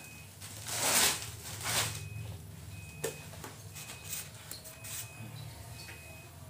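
Thin plastic bag rustling and crinkling in a few short bursts, with small clicks, as the bag is twisted and tied shut.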